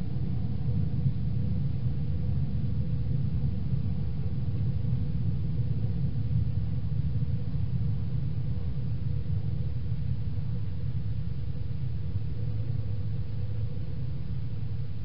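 Steady low rumble with a faint hiss, even throughout with no distinct knocks or clicks.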